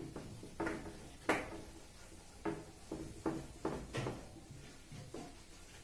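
Handheld eraser wiped across a whiteboard in about eight short, irregular rubbing strokes.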